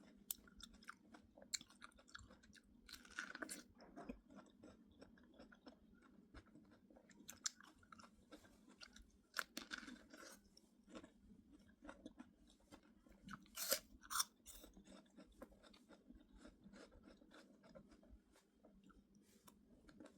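A person chewing and biting fresh fruit close to the microphone: soft, wet crunches and mouth clicks, with one louder crunchy bite about two-thirds of the way through.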